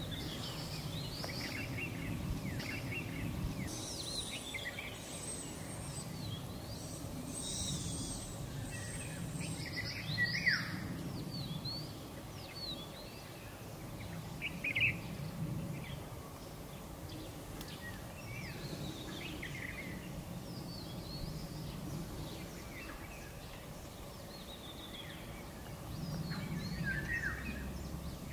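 Wild birds calling in dry forest: short chirps and sweeping notes come and go, with a sharper descending call about ten seconds in, over a steady low rumble.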